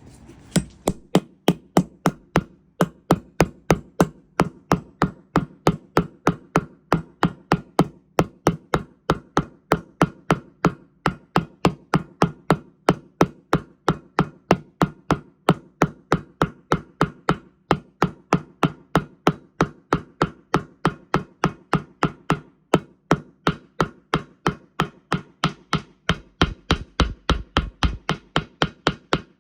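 Steady hammer blows, about three a second, on a Samsung washing machine's drum bearing as it is replaced.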